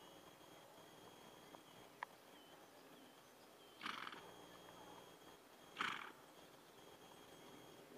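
A pony blowing out through its nostrils twice, two short breathy snorts about two seconds apart, over near silence.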